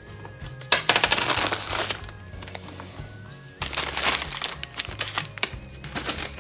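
Background music with two loud clattering, jingling bursts of hard objects being moved and handled, one about a second in and one about halfway, with scattered clicks between them.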